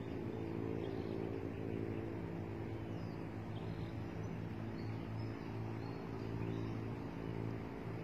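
A steady, low motor drone running without a break, with faint short high bird chirps now and then.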